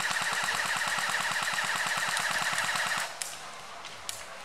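Airsoft gun firing a long full-auto burst, a rapid, even rattle of shots that stops abruptly about three seconds in. One or two single clicks follow.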